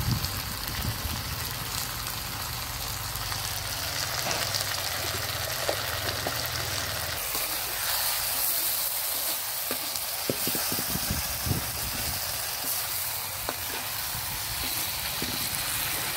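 Chicken pieces sizzling in hot oil in an iron kadai, with scattered clicks and scrapes as a metal slotted spoon stirs the spice powders in.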